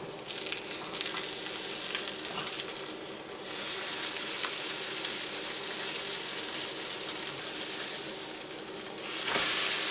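Egg omelette frying in a hot skillet: a steady sizzle with a few faint crackles, which grows louder about nine seconds in.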